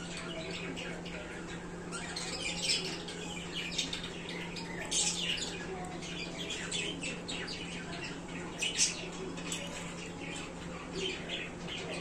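Budgerigars chirping and chattering, many short high calls scattered throughout, over a steady low hum.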